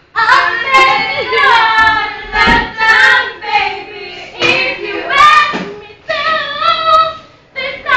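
A young girl singing a song unaccompanied, in sung phrases broken by short pauses.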